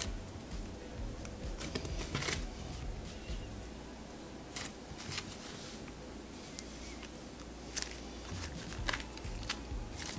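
Stiff, clay-like cloud slime being kneaded, folded and stretched by hand, giving scattered soft clicks and pops.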